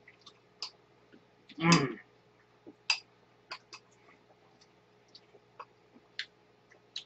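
Light clicks and taps of chopsticks and spoons against ceramic bowls during eating, irregular and scattered, with one brief louder noise a little under two seconds in, over a faint steady hum.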